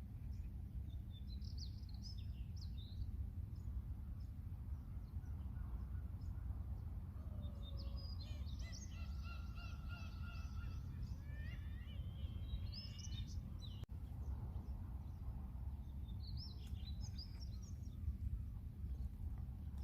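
Birds calling in three bursts of chirps and harmonic cries, the longest in the middle, over a steady low rumble of outdoor noise.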